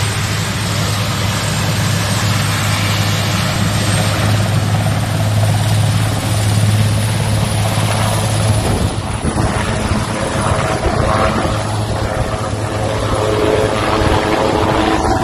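Military rescue helicopter's rotors and turbines running on the ground, then lifting off and passing low overhead. A steady low rotor throb sits under a thin high turbine whine that rises slightly, and about nine seconds in the sound turns rougher and choppier.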